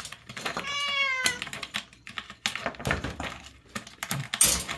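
A cat meows once, a call of about a second that falls in pitch. It is followed by a quick run of clicks and taps, the loudest near the end.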